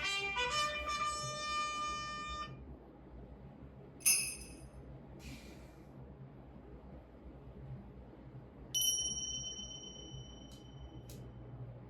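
A chiming electronic melody stops about two and a half seconds in. Two short bright dings follow, then a single clear ding about nine seconds in that rings for about two seconds, and a few light taps near the end.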